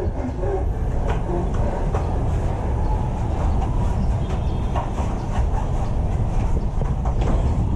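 Steady low rumbling noise that does not let up.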